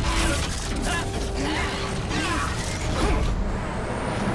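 Cartoon robot-transformation sound effects: a dense run of mechanical clanking, clicking and whirring as robot parts shift and lock into vehicle form, with several short sweeping whirs.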